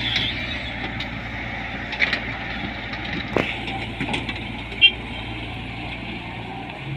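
Tata Hitachi 120 excavator's diesel engine running steadily while it works, with scattered clinks and knocks and one sharp clank a little before five seconds in.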